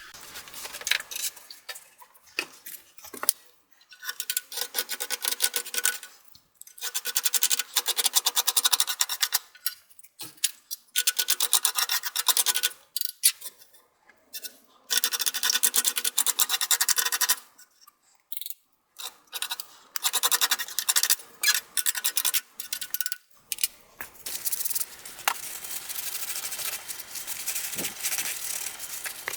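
Scraping caked dust and smoke-residue gunk off a desktop computer case's rear grill, in repeated strokes a second or two long with short pauses between them. Near the end a steadier, even noise takes over.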